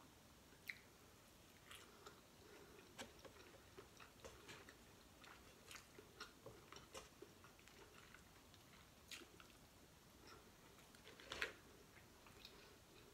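Faint close-up chewing of prawn and rice, with soft wet mouth clicks and smacks scattered throughout and a louder click about eleven seconds in.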